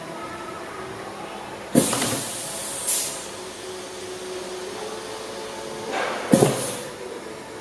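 Pneumatic valve and diving nozzle of a semi-automatic liquid filling machine actuating: a sharp hiss of compressed air about two seconds in, with a shorter hiss a second later, then the same again near the end.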